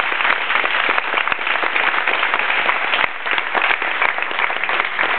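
A group of people applauding, many hands clapping at once in a dense, continuous patter.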